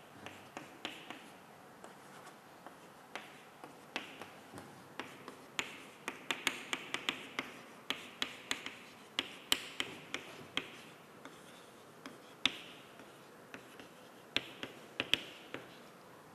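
Chalk writing on a chalkboard: a run of sharp taps and short scratchy strokes, coming thickest in the middle.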